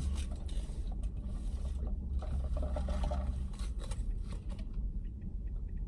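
Small clicks and rustles of people handling takeout food and packaging inside a car, over a low steady rumble that stops about three and a half seconds in.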